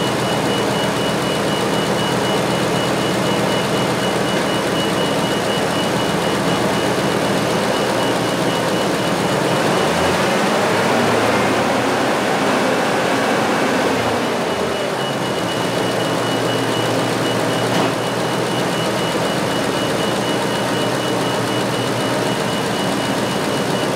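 Ford F-350 gasoline truck engine running with its electrical loads (headlights, wipers) switched on during a charging-system test, with a thin steady high tone above it.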